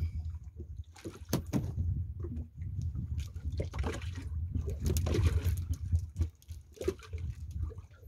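Water sloshing and lapping against a small boat's hull in irregular splashes, over a steady low rumble.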